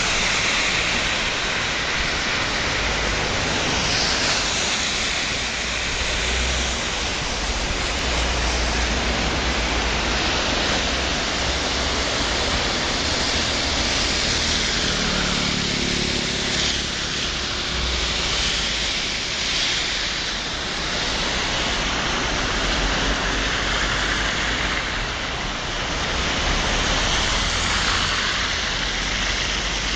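Muddy floodwater in a swollen river channel rushing past a bridge, a steady loud wash of turbulent water with a low rumble underneath. Roughly halfway through, a vehicle passes on the road beside the channel.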